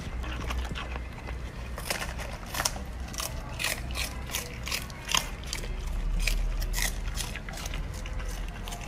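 A golden retriever puppy biting and chewing crisp napa cabbage leaves: irregular sharp crunches, a few every second.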